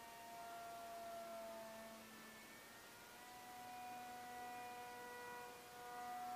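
RC airplane's motor in flight, a faint steady whine of several tones that shifts pitch about two seconds in and settles on a new steady pitch a second later, as the throttle changes.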